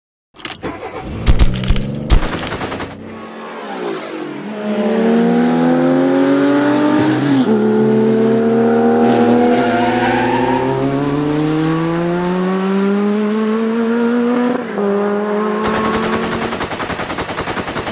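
Bursts of rapid machine-gun fire, then a car engine revving up through the gears: the pitch climbs, drops at a shift about halfway, and climbs again for several seconds. Rapid gunfire returns near the end.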